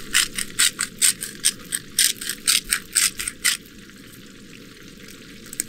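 Hand-twisted sea salt grinder grinding salt over the trout: a quick run of gritty clicks, about five a second, that stops about three and a half seconds in.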